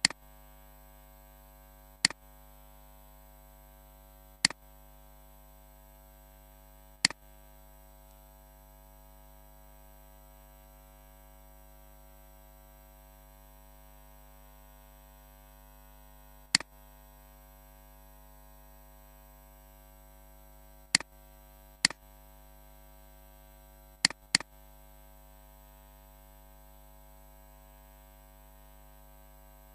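Computer mouse clicking: about nine short, sharp clicks at uneven intervals, a few in quick pairs, over a steady electrical hum.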